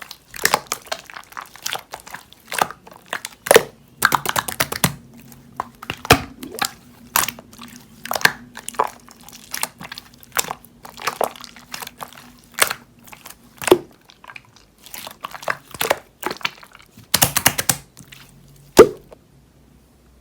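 Slime being squeezed, stretched and pressed by hand, making irregular wet popping clicks and crackles, with a denser crackle and one loud pop near the end.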